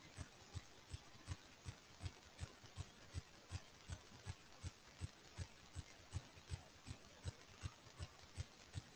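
Faint, regular clicking, just under three clicks a second and very even, over low background hiss.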